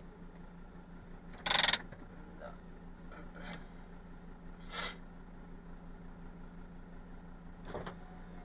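Truck engine idling steadily, heard from inside the cab. A short loud burst comes about one and a half seconds in, with fainter brief sounds near five and eight seconds.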